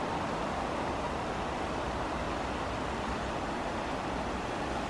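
Shallow hot spring fizzing and bubbling steadily as gas escapes through the water, a constant even sizzling hiss.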